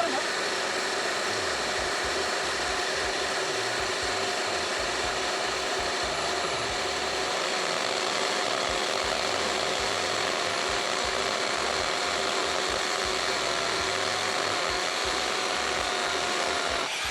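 DACO 2400 W dry/wet diamond core drill running under load, boring into hard concrete with stone aggregate; a steady, loud drilling noise that cuts off near the end.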